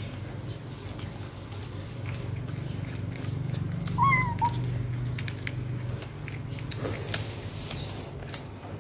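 Kitten eating raw meat: chewing and tearing clicks over a low steady rumble, with one short high mew about four seconds in.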